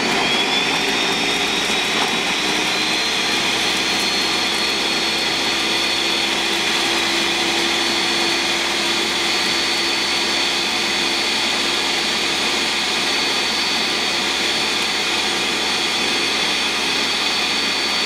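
Ninja countertop blender running steadily, blending mint chocolate chip ice cream and milk into a milkshake. Its motor whine climbs in pitch over the first few seconds as it comes up to speed, then holds level.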